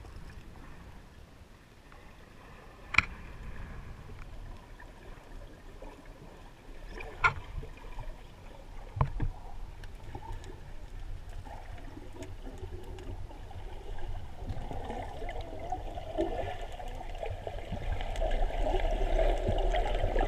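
Underwater sound picked up through a waterproof action-camera housing: a low muffled rumble with three sharp clicks, and water noise that grows steadily louder over the last several seconds as the diver nears the surface.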